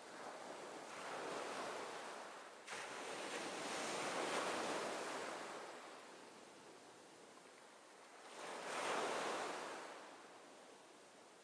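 Sea waves washing in slow surges that swell and fade, three times over, mixed with wind. The level jumps up suddenly about three seconds in.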